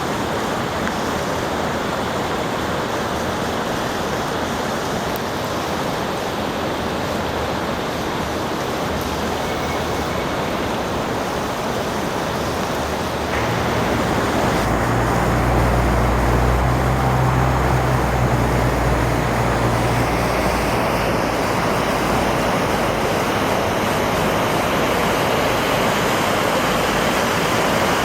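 Floodwater rushing steadily in a loud, even roar of water. About halfway through it grows a little louder and a low steady hum joins it for several seconds.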